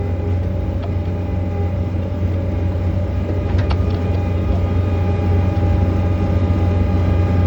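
John Deere 317 skid loader's diesel engine running steadily while pushing snow, heard from the open cab, growing a little louder toward the end. There is a single sharp knock about three and a half seconds in.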